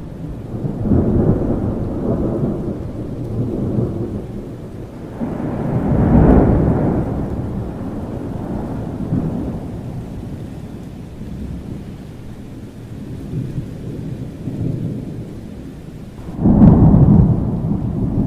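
Thunderstorm with steady rain: thunder rumbling in long rolling swells, then a sudden, louder crack of thunder near the end that rolls away.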